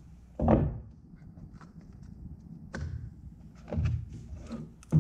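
Cardboard knife box being opened by hand: the paper sleeve slides off with a thump about half a second in, then a sharp click near three seconds and a few knocks as the knife is lifted out of its box insert.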